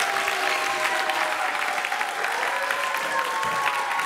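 Audience applauding, a steady dense clapping, with a few long held tones sounding over it.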